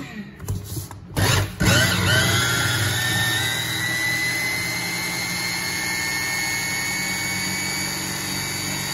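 Kenwood 500 W hand blender with chopper bowl switched on after a short burst about a second in, then running steadily with a high whine as it blends cream cheese and condensed milk into a topping.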